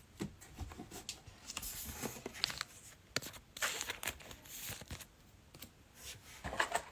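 Trading cards and their packaging being handled: soft slides, taps and brief rustles, scattered and quiet.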